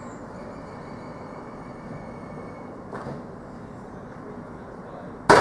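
Supermarket goods-yard loading noise: a steady vehicle hum with a small knock about three seconds in, then a sudden loud bang near the end that rings briefly as it fades.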